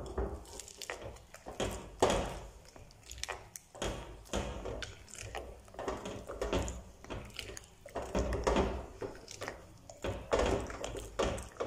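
Silicone spatula stirring and scraping a thick flour-and-margarine batter in a glass bowl, with irregular scrapes and knocks against the glass.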